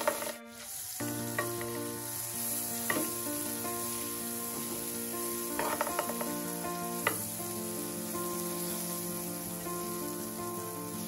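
Butter sizzling as it melts in a hot nonstick frying pan, starting about a second in and carrying on steadily.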